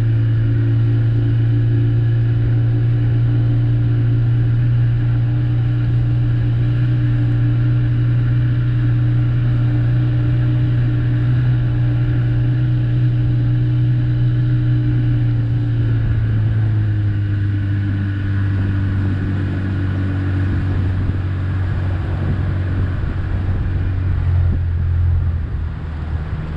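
A small boat's motor running steadily under way, a loud, even hum whose pitch drops a little about two-thirds of the way through.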